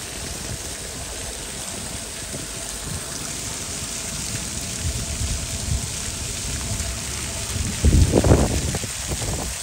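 Jets of a ground-level plaza fountain splashing steadily onto wet stone paving. About eight seconds in there is a brief, louder low rumble.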